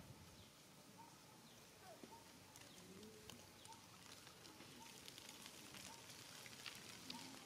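Near silence: faint outdoor ambience with a faint short chirp repeating about twice a second and a few scattered faint clicks.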